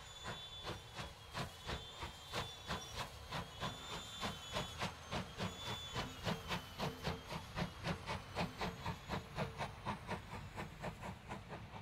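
Rebuilt Bulleid West Country class steam locomotive 34046 Braunton passing under load, its three-cylinder exhaust beating evenly at about four beats a second over a faint steam hiss. The beats are loudest midway and fade near the end as the coaches follow.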